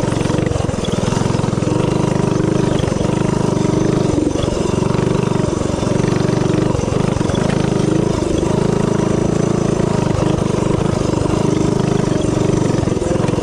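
Predator 212 single-cylinder four-stroke engine on a mini bike, governor removed and fitted with a stage 1 kit, running steadily under throttle while being ridden, with a few brief dips in engine speed.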